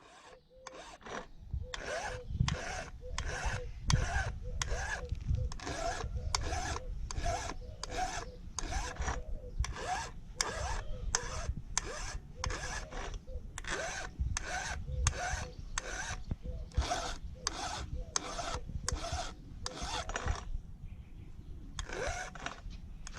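Chainsaw file rasping across the steel cutter teeth of a saw chain, sharpening it by hand: an even run of strokes, about two a second, that pauses briefly near the end before a few more strokes.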